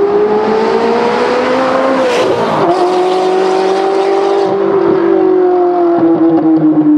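Ferrari 360's V8 engine accelerating past at speed: its note climbs as the car approaches, sweeps past with a rush and a drop in pitch about two seconds in, then holds a steady note that slowly falls lower as the car pulls away.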